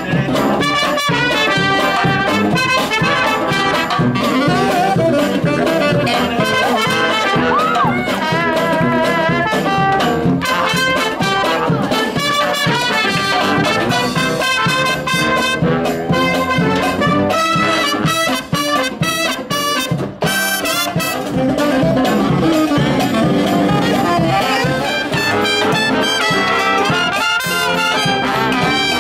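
Brass marching band playing an upbeat tune, with trumpets and trombones carrying the melody.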